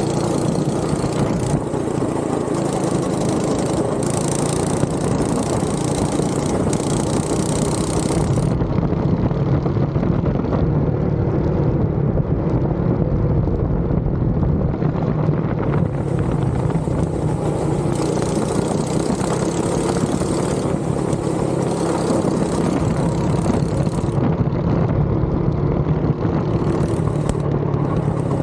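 Go-kart engine running steadily while lapping a track, heard from on board the kart. A high hiss over the engine drops away about eight seconds in and comes back about halfway through.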